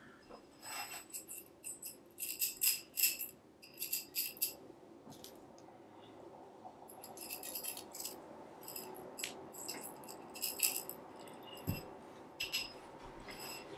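Metal tensegrity tubes clinking and rattling against each other as they are handled and their cord links are hooked back on, in several short bursts of bright, ringing ticks.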